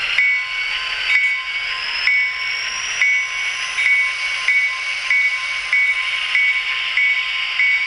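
Tsunami DCC sound decoder in an N scale Santa Fe F45/FP45 diesel model playing a locomotive bell through the model's tiny speaker: the bell rings over and over, about once or twice a second, over a steady hissing engine sound. The bell rings by itself because the decoder is running on DC power. A faint whine rises in pitch over the first few seconds.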